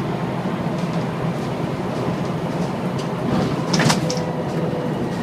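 Volvo B7TL double-decker bus heard from on board, its engine and road noise running steadily, with one sharp rattling knock a little under four seconds in.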